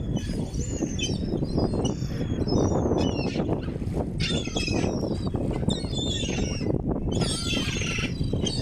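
A flock of seagulls calling over and over, many cries overlapping, over a steady low rumbling noise.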